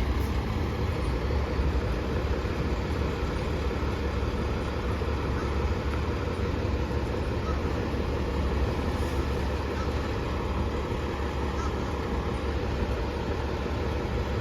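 Fire engine's diesel engine running steadily with a low, even rumble.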